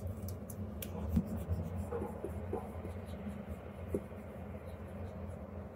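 Stylus nib tapping and scratching in short, irregular strokes on the screen of a Huion Kamvas Pro 19 pen display, over a low steady hum.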